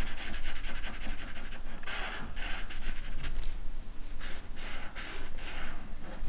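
Black marker scribbling on paper, filling in a small area with quick back-and-forth strokes. The strokes come rapidly at first, then in slower, separate groups later on.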